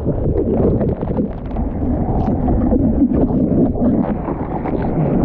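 Churning surf whitewater and water splashing around a surfer lying on his board, picked up by a GoPro at the water's surface. It comes through as a dull low rush broken by many short splashes.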